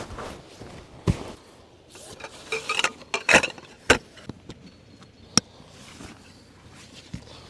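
Footsteps on grass, then rustling, knocking and clinking as a rolled canvas bundle is set down and handled on the ground, with a single sharp click about five seconds in.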